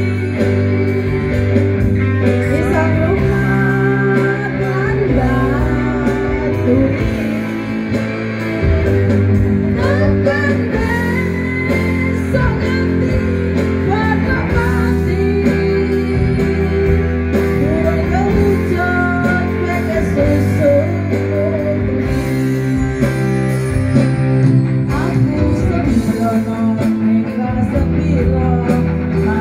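Woman singing a song into a microphone, live, backed by an arranger keyboard, electric guitar and bass guitar through PA speakers.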